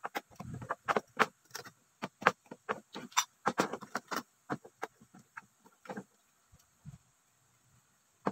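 Metal rods clicking and knocking against a plastic rack as they are fitted into its holes: a quick, irregular run of taps that thins out after about six seconds.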